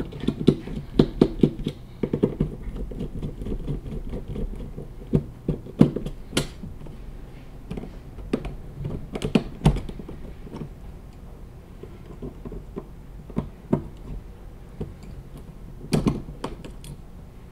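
Small clicks and taps of a Librem 5 smartphone being taken apart by hand, with screws and internal parts being worked loose. A quick run of clicks comes near the start, then scattered single knocks.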